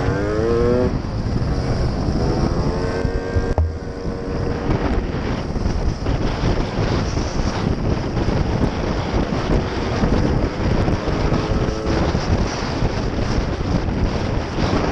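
Motorcycle engine accelerating, its pitch rising through the gears with a short break about three and a half seconds in, then cruising steadily under heavy wind noise on the microphone.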